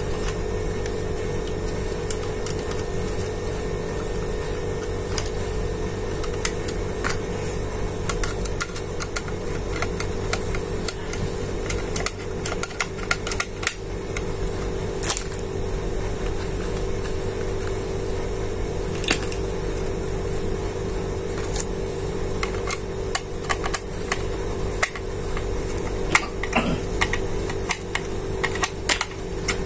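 Scattered clicks and light taps of a screwdriver, wires and the plastic housing of an emergency break-glass door release being handled, over a steady hum. The clicks start after the first several seconds and come more often toward the end.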